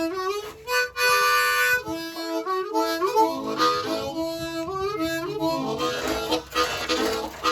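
Harmonica playing a tune of quick stepping notes, with a long held chord about a second in.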